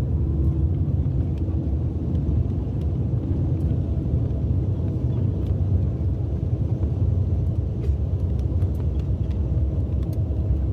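Cabin noise of a jet airliner rolling on the ground after landing: a steady low rumble from the engines and the wheels on the runway, with a faint steady hum over it.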